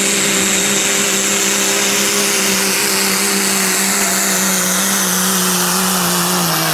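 Turbocharged diesel pickup engine at full throttle, pulling a weight-transfer sled, with a high turbo whistle over the engine note. The pitch holds steady, then sinks slowly near the end as the sled's load drags the engine down.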